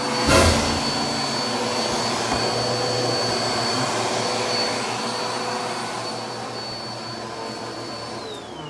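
Vacuum cleaner running steadily with a high whine while vacuuming a bed, with a loud knock about a third of a second in. Near the end it is switched off and the motor winds down, its whine falling in pitch.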